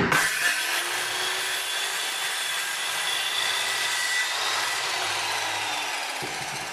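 Modern M-2600L 700-watt circular saw cutting through wood. The cutting noise starts abruptly and runs steadily with a faint whine, easing slightly near the end.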